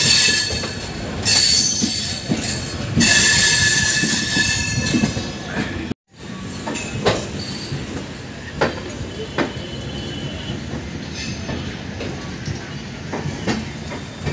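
Indian Railways express coach running on the track, heard from the open doorway: the wheels squeal with high, steady tones for the first few seconds. After a short break, it is rolling noise with scattered sharp clacks over rail joints and points as the train runs along the platform into the station.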